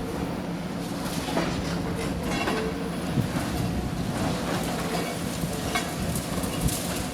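Demolition machine's diesel engine running steadily, with scattered clanks and clatter of metal and debris.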